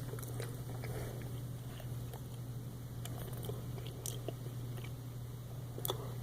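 Chewing and biting a piece of chewy dried peach, with small scattered mouth clicks, over a steady low hum.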